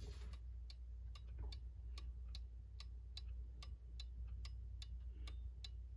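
Hermle two-wind mechanical clock movement ticking, about three sharp ticks a second. The movement is tilted to one side to set it in beat: the tick pattern shows whether the escapement is balanced.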